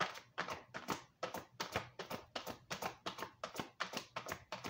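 A deck of oracle cards being shuffled by hand: a quick, even run of light card slaps, about five a second.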